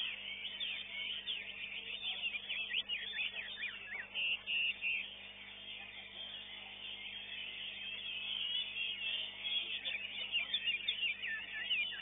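Caged songbird singing a fast, unbroken stream of short chirps and whistles, amid other birds calling.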